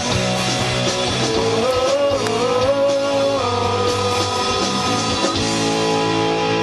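Loud rock music with guitars and a sung vocal line that wavers on held notes, stopping abruptly at the end.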